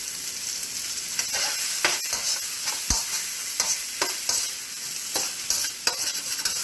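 Beef pieces sizzling in hot oil in a wok, with a steady hiss, while a spatula stirs and tosses them, scraping and knocking against the pan at irregular moments.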